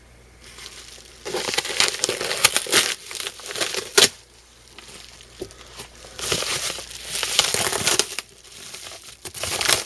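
A mail package being opened and unpacked by hand: crinkling, tearing and rustling of packaging in several bursts, with a sharp click about four seconds in.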